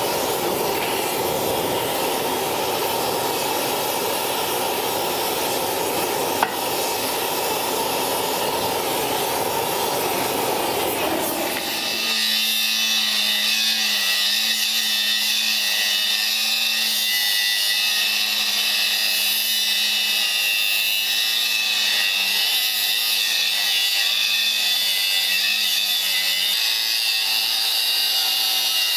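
Oxy-acetylene torch flame hissing steadily as it heats a steel steering arm. About 12 s in this gives way to a cordless grinder running on the steel, with a steady high whine and sparks flying.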